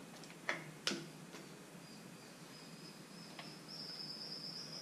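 Two sharp clicks about half a second and a second in, from hands working on the top of the engine, then a cricket's steady high-pitched trill that grows louder near the end.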